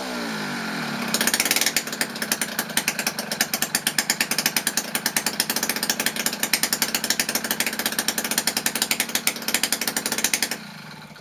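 Peugeot TKR scooter engine with a 70cc Top Performance two-stroke cylinder kit, running: the revs fall during the first second, then it runs with a fast pulsing beat and cuts off suddenly near the end.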